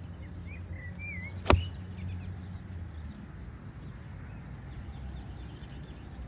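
Golf iron striking the ball: one sharp crack about a second and a half in. Birds chirp around it over a steady low rumble.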